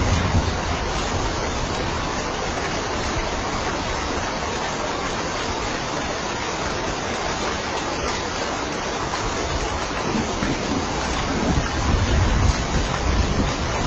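Steady heavy rain falling, a dense even hiss, with a low rumble swelling about ten seconds in.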